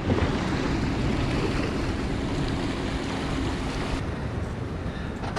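Steady rushing of wind on the microphone mixed with surf washing against the rocks of a jetty.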